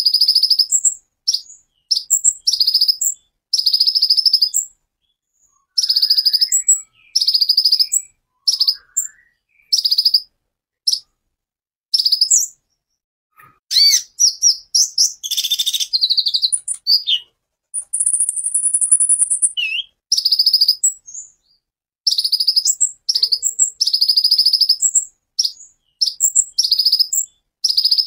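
Male van Hasselt's sunbird (kolibri ninja) singing in 'tembakan' style: rapid, buzzy, high-pitched bursts of about half a second to a second each, repeated with short gaps. Midway there is a run of more varied notes and one held high whistle of about a second and a half.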